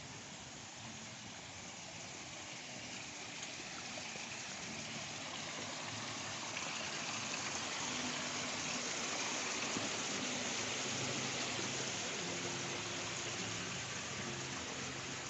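Water splashing steadily down a small rock cascade. It grows louder toward the middle and eases off a little near the end.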